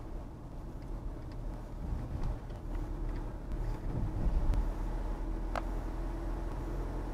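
Car driving, heard from inside the cabin: a steady low engine and road rumble, a little louder about four seconds in, with a few faint clicks.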